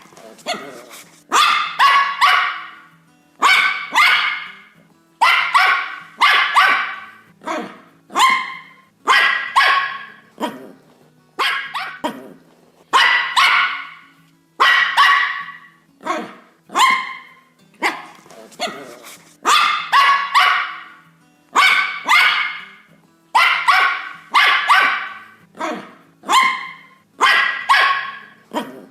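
A dog barking over and over, about one bark a second with some coming in quick pairs, over faint background music.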